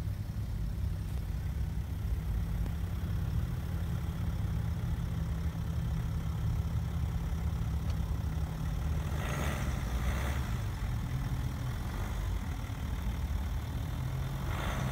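BMW X5 engine running at low revs as the SUV crawls across grass and onto a log obstacle, a steady low rumble. Two short bursts of hiss come about nine seconds in and near the end.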